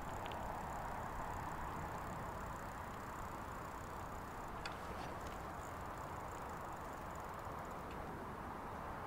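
Bicycle riding along a paved path: a steady rolling hiss of tyres and air, with a couple of light clicks about halfway through.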